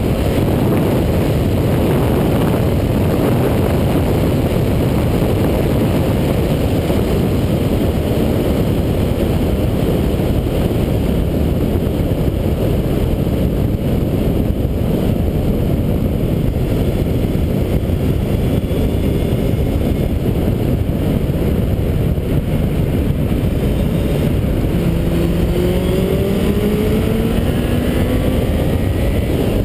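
Suzuki B-King's inline-four engine and the rush of air while riding at speed, a steady loud low rumble; in the last few seconds the engine note climbs steadily in pitch as the bike accelerates.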